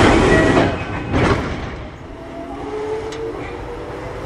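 Kintetsu 1021 series electric train with Hitachi GTO inverter control, heard from on board. A loud rushing running noise dies away over the first two seconds, with a smaller surge just after the first second. It leaves a quieter run with faint whining inverter tones and a few sharp clicks as the train brakes toward a station.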